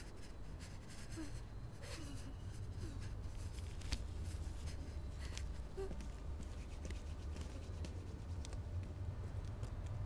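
Low, steady rumble of outdoor night ambience, with scattered light clicks and rustling.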